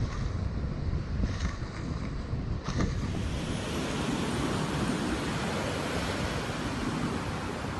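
Surf breaking and washing up the beach, with wind buffeting the microphone. The wash swells about three seconds in and holds.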